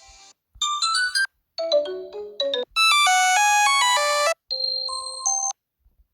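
Nokia mobile phone ringtones played one after another: four short electronic melodies of a few notes each, separated by brief gaps, the loudest a held, ringing chord in the middle.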